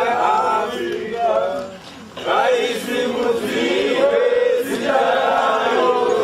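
A crowd of protesters singing a chant together, many voices in unison, with a brief pause about two seconds in before the next phrase.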